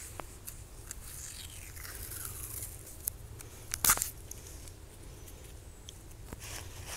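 Blue tape being peeled and torn and pressed onto a painted metal weight plate: crackly handling noise with a falling peel sound around two seconds in and a short, loud rip just before four seconds.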